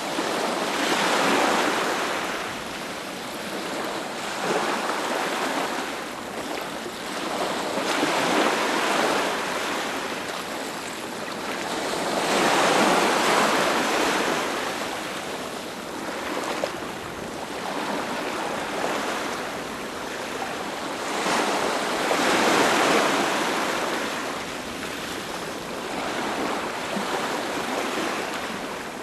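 Ocean surf breaking on a beach, the wash swelling and fading every few seconds, with the biggest waves about halfway through and again about three quarters of the way through.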